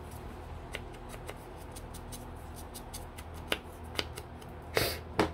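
Light crafting handling at a tabletop: scattered small clicks and taps from a paper label and a foam ink blending tool, with a short brushing scrape about five seconds in. A low steady hum runs underneath.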